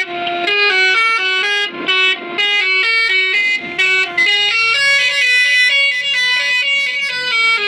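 Basuri telolet musical horn playing a quick melody, its horn notes stepping from pitch to pitch with several tones often sounding together.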